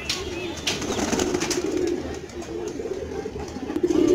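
Pigeons cooing steadily, with a few wing flaps; a louder flutter of wings near the end.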